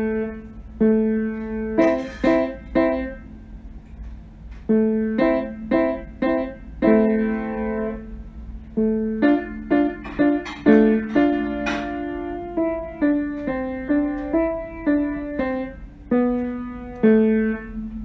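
Background piano music: a slow melody of single struck notes that ring and fade, played in short phrases.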